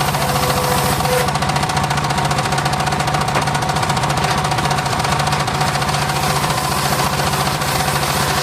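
Homemade circular-saw rig running steadily: its engine chugs at an even, fast pulse under a steady whine from the spinning saw.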